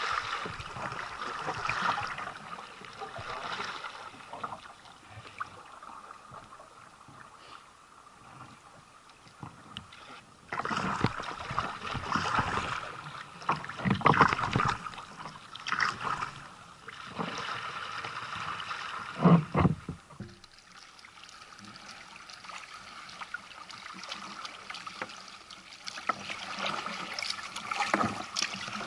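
Water splashing and lapping against a sea kayak's hull as it is paddled, in uneven surges that change abruptly several times. A single sharp thump about two-thirds of the way through is the loudest sound.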